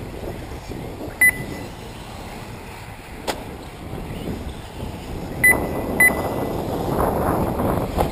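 Short electronic beeps of a race lap-timing system: one about a second in and two close together halfway through. Under them runs the steady noise of 1/8-scale electric RC buggies on the off-road track.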